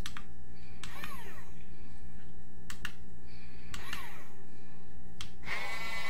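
Small electric gear motors of a toy RC excavator running with a steady hum, with scattered sharp plastic clicks and short whirring glides as the boom and bucket move. Near the end a tune with held notes comes in.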